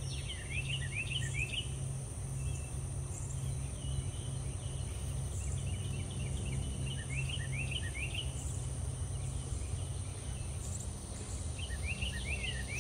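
Garden ambience: small birds chirping in quick runs of short falling notes, over a steady high insect drone and a constant low rumble.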